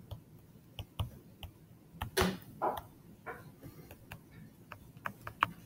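Stylus pen tapping and clicking on a tablet screen while handwriting: irregular sharp ticks, in small clusters, with a short rustle about two seconds in.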